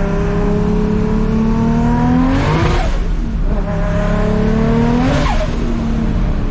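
Big-turbo Toyota Supra 2JZ-GTE inline-six on open headers climbing in revs twice. Each climb is cut off suddenly by a short rushing hiss, then the engine picks up again from lower revs.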